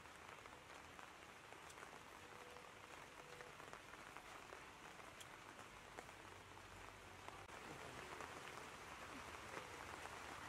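Near silence: a faint steady outdoor hiss with a few soft ticks.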